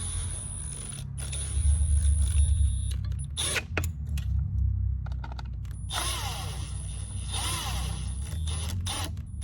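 Screws being driven back into an 8.4-inch Uconnect radio unit with a screwdriver: scattered clicks and scraping of the driver in the screw heads, with a few short squeaks.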